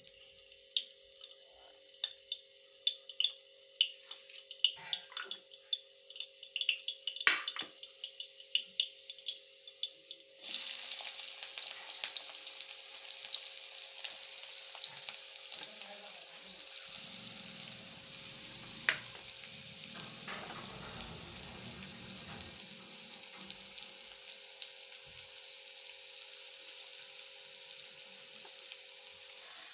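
Food frying in hot oil in a pan: quick sharp crackles and pops for the first ten seconds or so, then a steady sizzle for the rest.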